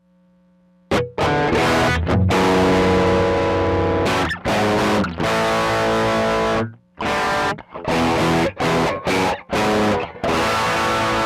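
Electric guitar played through a pedalboard with distortion: after a faint, fading note, loud distorted chords ring out and are cut off sharply again and again, in short choppy stabs in the latter half.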